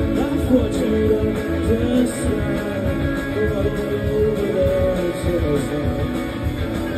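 Live rock band playing loudly, with electric guitar to the fore, recorded from among the audience.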